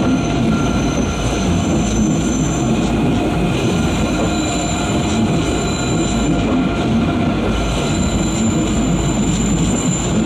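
ICE 3 high-speed trains running past on curved track: a steady rumble of wheels on rail, with high-pitched wheel squeal that comes and goes in spells of a few seconds.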